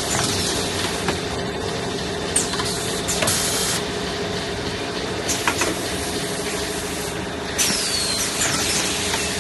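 Semi-automatic toilet paper packing machine running: a steady machine hum with bursts of compressed-air hiss from its pneumatic cylinders and a few sharp metallic clacks as the pushers move the rolls, and a falling whistle of air about eight seconds in.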